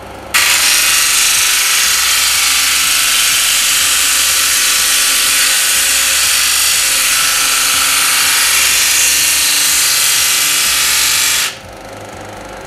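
A curved wooden workpiece being sanded on the spinning abrasive disc of a 12-inch induction-motor disc sander: a loud, steady sanding hiss that starts about half a second in and cuts off near the end when the wood is lifted away. Under it runs the low, quiet hum of the induction motor.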